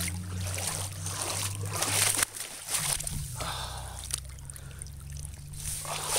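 Water splashing and sloshing in the shallows as a hooked carp thrashes and is dragged up onto the bank, with the loudest splash about two seconds in. A steady low drone runs underneath.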